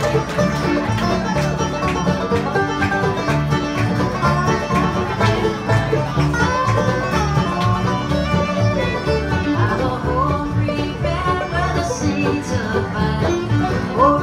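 Acoustic bluegrass band playing with a steady beat: banjo, resophonic guitar (dobro), acoustic guitars, mandolin and upright bass together, with sliding notes over the rhythm.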